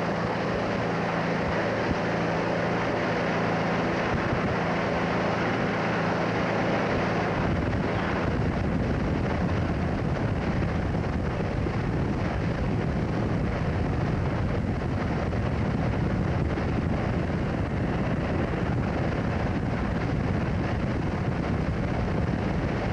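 A motorboat's engine running steadily with wind rushing over the microphone. About seven seconds in, the engine's steady hum gives way to a heavier low rumble of wind and motor.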